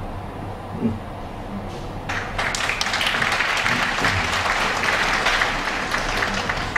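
Audience applauding in a hall, the clapping starting about two seconds in and holding steady until near the end.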